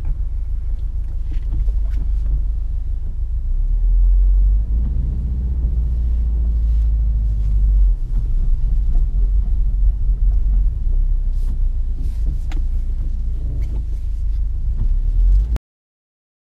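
2016 Subaru WRX STI's turbocharged 2.5-litre flat-four engine running at low revs, heard inside the cabin as a deep, steady rumble. It grows louder from about four to eight seconds in, while the car is in reverse. It cuts off suddenly near the end.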